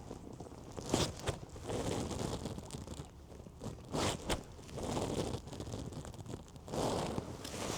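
A swan dabbling and pecking at bread in the water: a few short, soft, splashy swells with sharp snaps in between.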